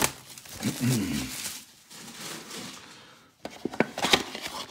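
Hands handling and opening a cardboard trading-card mega box: soft rubbing of cardboard, then a run of sharp clicks and taps from the box flaps near the end. A brief murmur of a voice comes about a second in.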